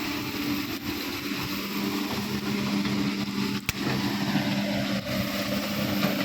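Hydraulic excavator's diesel engine running steadily, with one sharp click a little past halfway.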